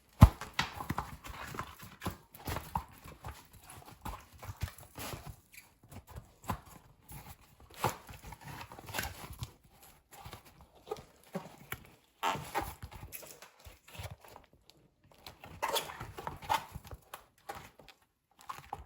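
Irregular knocks, taps and rubbing of a new bicycle tyre being worked by hand onto the wheel rim.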